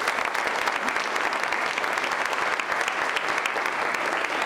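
Audience applauding: a steady round of many hands clapping at once.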